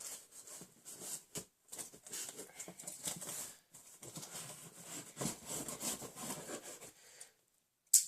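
A shipping package being opened by hand: irregular rustling, scraping and tearing of the packaging. Near the end there is a short gap, then one sharp click.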